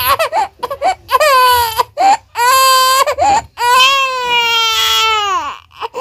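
A two-month-old baby crying: a few short fussy cries, then three wails, the last and longest about a second and a half, falling away at its end.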